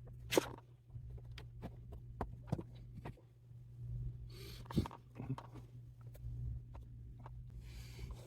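Small scattered clicks and taps of laptop parts and tools being handled, the loudest about half a second in and near the middle, with a brief rustle around the middle, over a steady low hum.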